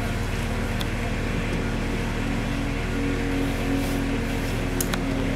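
Engine of a self-propelled articulating boom lift running steadily with a constant low hum, with a faint click about a second in and another near the end.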